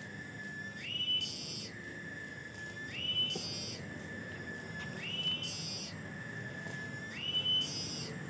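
A cicada's continuous high, whistle-like drone that jumps up in pitch for about half a second every two seconds, four times, with a brief higher hiss after each jump.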